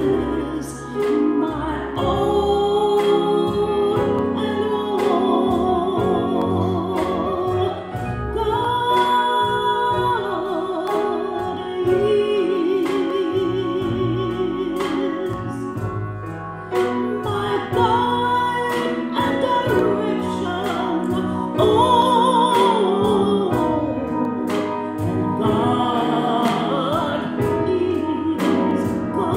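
Church choir singing a gospel selection with instrumental accompaniment and a steady beat.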